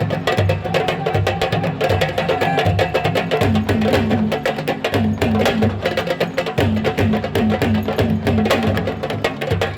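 Senegalese sabar drums playing fast, dense, sharp strokes over a repeating low drum beat, accompanying a wrestler's tuus dance.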